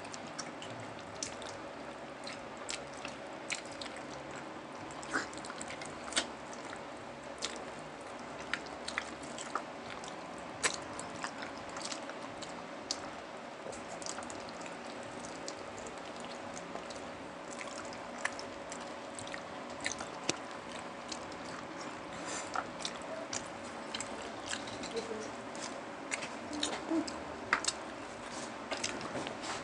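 Close-up eating sounds of two people eating pork leg in sauce with their hands: chewing and many short, wet, sticky clicks scattered throughout.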